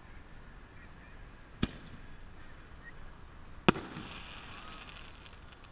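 A 60-gram Pro Shell artillery firework: a sharp bang as it is launched from its mortar tube, then about two seconds later a louder bang as the shell bursts. A second or so of crackling hiss follows the burst.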